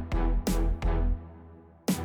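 Electronic outro music with heavy bass notes and sharp drum hits in a steady beat.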